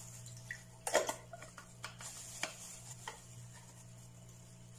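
Soursop pulp being spooned into a glass blender jar of milk mixture: a few light clinks and knocks of utensil or container against the jar, the sharpest about a second in and more around two and three seconds, over a faint steady low hum. The blender is not yet running.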